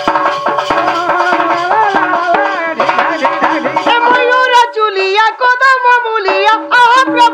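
Sambalpuri danda nacha folk music: a hand-played barrel drum beats over a sustained organ. About four seconds in, the drumming drops away and a wavering, sliding melody line carries on.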